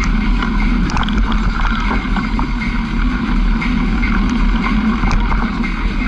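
A motor vehicle's engine running steadily while driving over a rough dirt road, with scattered short knocks and rattles.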